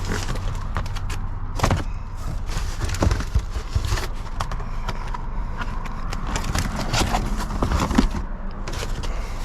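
Plastic bags and food packaging rustling, crinkling and knocking as they are sorted through by hand, over a faint low hum.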